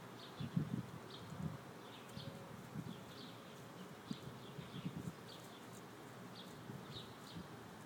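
Faint outdoor ambience: short high chirps repeating irregularly about every half second to a second, over soft, scattered low ticks and rustles.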